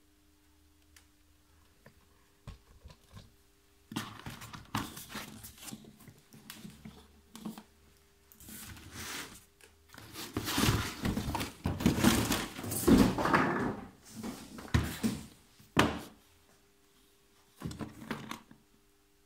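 Cardboard shipping box being handled and opened: the flaps rustle and scrape as a hard plastic tool case is slid out. After a few quiet seconds the rustling builds, loudest in the middle, and a couple of short knocks from the plastic case come near the end.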